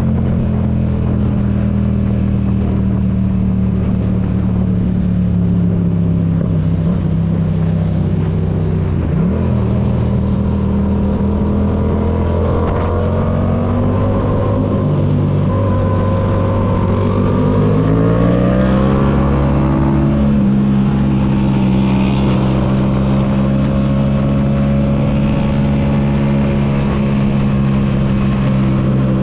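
Yamaha MT-07's 689 cc parallel-twin engine running steadily at cruising speed, then accelerating from about 16 seconds in, its pitch rising over a few seconds before it settles at higher revs.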